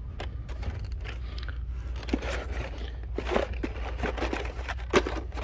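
Carded Hot Wheels cars in plastic blister packs rustling and clicking against each other and the cardboard as a hand flips through them in a cardboard shipping case, with a sharper click about five seconds in. A low steady hum runs underneath.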